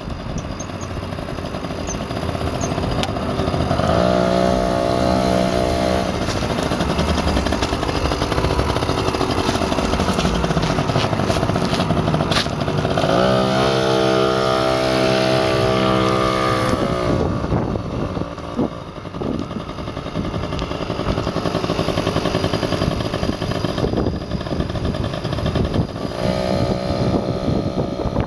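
An engine running over a continuous noisy rumble, its pitch rising and holding twice, about four seconds in and again about thirteen seconds in.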